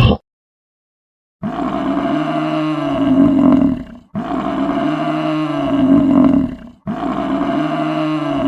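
A large animal's long, drawn-out call, three times in a row, each call the same as the last.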